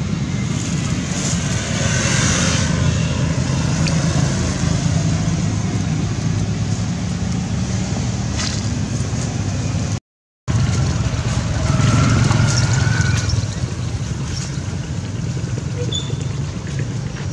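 A steady low engine hum, with a few faint high chirps about two seconds in and again around twelve seconds in.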